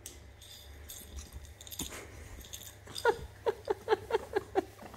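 Young pet monkey giggling while being tickled: a quick run of short, squeaky calls that fall in pitch, about six a second, starting about three seconds in after soft rustling.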